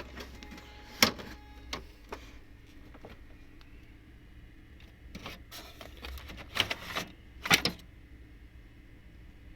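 Plastic clicks and knocks from an HP LaserJet M1005 printer's casing being opened up by hand. Sharp knocks come about a second in and again in a cluster about six to eight seconds in, with lighter clicks between.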